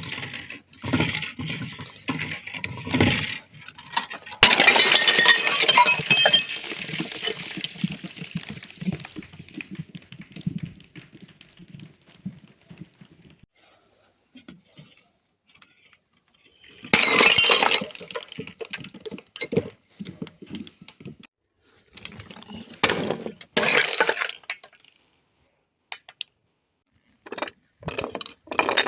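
Glass bottles being smashed: crunching at first, then a loud crash about four seconds in followed by several seconds of shards clinking and settling, and more crashes of breaking glass about halfway through and towards the end.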